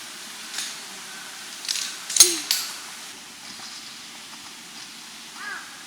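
A few sharp knocks or clicks, the loudest a little past two seconds in. Near the end a crow starts cawing in short, repeated calls.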